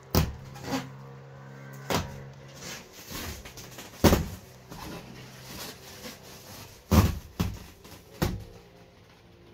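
Plastic protective film being peeled off a new rear window, crinkling and rustling, with about five sharp crackles and knocks as the film and panel are pulled. A low hum sounds through the first few seconds.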